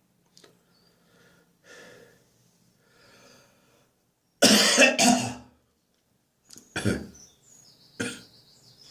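Dry, hacking cough from a throat infection: faint breaths, then a loud pair of coughs about halfway through, followed by two shorter single coughs near the end.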